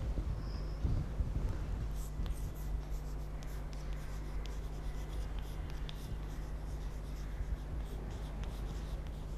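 Chalk writing on a blackboard: irregular scratches and taps of the chalk, starting about two seconds in, over a steady low hum.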